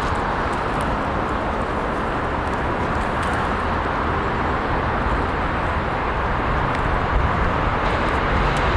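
Class 66 diesel locomotive's two-stroke V12 engine running steadily as it hauls a freight train toward the listener, a low rumble under a broad noise.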